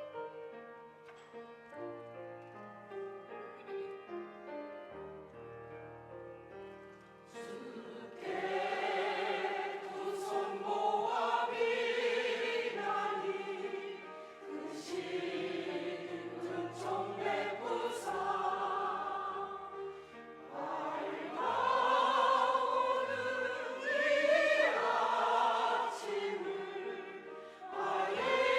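Church choir singing a hymn in several voice parts with piano accompaniment. The piano plays alone for about the first eight seconds, then the choir comes in louder and sings in long phrases.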